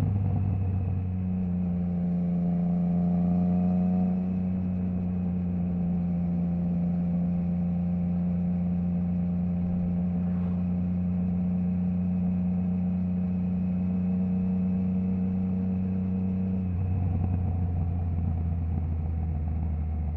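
Triumph Trident 660's inline three-cylinder engine through a Zard stainless full exhaust with the baffle removed, the bike riding at steady revs. About three-quarters of the way through, the revs drop to a lower, rougher note.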